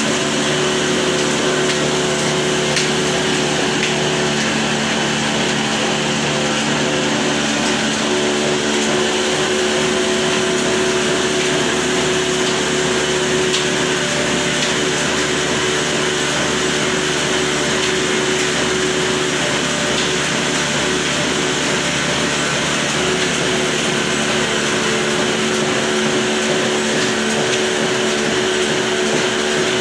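An old stationary diesel engine and the flour mill it drives by a flat belt, both running at speed: a loud, steady whirring hum with a few held tones.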